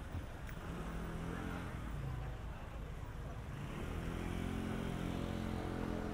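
A motor vehicle's engine running steadily, getting louder about three and a half seconds in.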